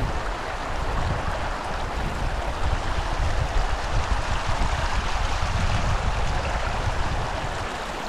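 Fast river rushing over a stony bed: a steady rushing water noise.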